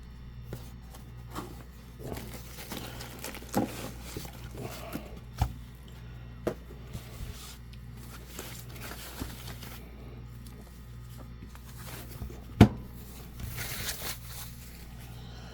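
Packaging being opened and handled by hand: scattered clicks, scrapes and crinkling, with one sharp click, the loudest sound, about three-quarters of the way through, and a short rustle right after it. A low steady hum runs underneath.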